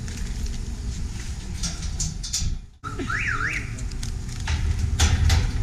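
A short siren-like warbling tone, sweeping up and down twice just after the middle, over a steady low rumble with a few knocks; the sound cuts out for a moment just before the tone.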